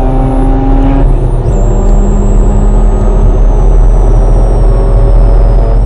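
Mazda RX-8's twin-rotor rotary engine running at speed, heard from inside the cabin over heavy road and wind rumble; its note steps down about a second in, then holds steady.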